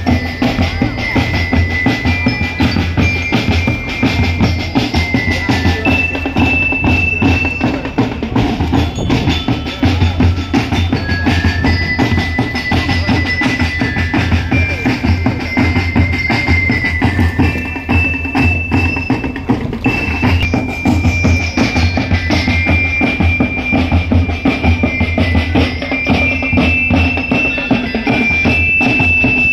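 Music with a steady drum beat and heavy bass, carrying a high bell-like melody of held notes.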